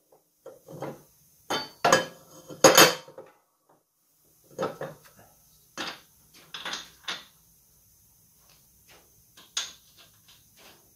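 Steel mulching blades on a John Deere LA165 mowing deck clanking against the deck as they are turned and handled by hand. A few loud metallic clanks in the first three seconds, then lighter knocks and ticks.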